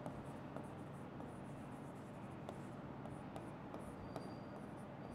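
Stylus writing on an interactive whiteboard screen: faint scattered ticks and light scratching of the pen tip against the glass, over low room hiss.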